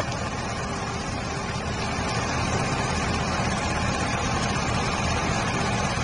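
Mercedes-Benz water tanker truck's diesel engine running as it moves slowly, with a steady hiss of water jetting from its front spray bar.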